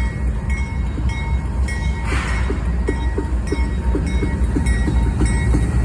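CSX intermodal freight train rolling through a grade crossing: a steady low rumble, and from about halfway through a regular run of wheel clicks over the rail joints, roughly three a second. A crossing warning bell rings evenly over it.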